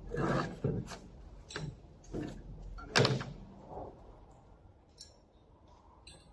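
A run of knocks and clatters from parts and packing being handled and set down while the machine is unpacked. About seven hits come in the first four seconds, the loudest about three seconds in, then only a few faint ticks.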